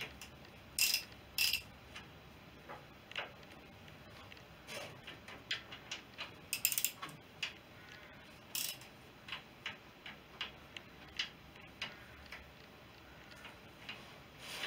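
Hand tools clicking and clinking on metal fittings under a BSA B31 motorcycle engine as fasteners are worked loose. The clicks come irregularly, with louder metallic clinks about a second in and again around seven and nine seconds.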